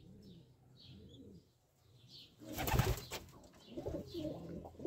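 Domestic pigeons in a loft: a short burst of wing flapping about two and a half seconds in, with soft cooing before and after it.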